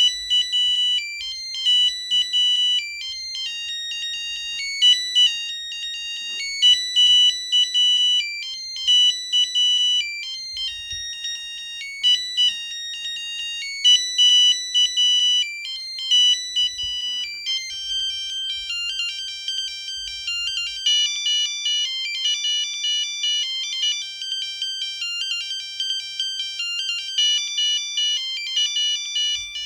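Siemens C35 mobile phone playing its monophonic ringtones as high-pitched beeping melodies. One short tune repeats several times, then a little past halfway a different, busier tune with more notes starts.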